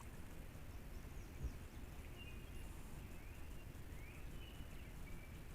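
Faint bird calls: short, high, rising chirps repeating about once a second, over a steady low rumble.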